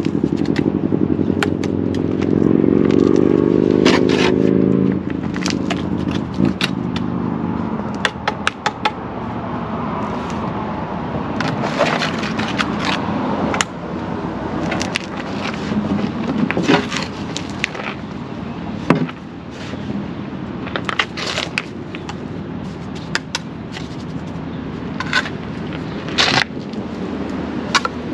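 Mason's trowel scraping and tapping as fast-setting concrete mix is packed into a broken concrete curb section, in irregular sharp scrapes and clicks. A vehicle engine runs during the first five seconds and cuts off.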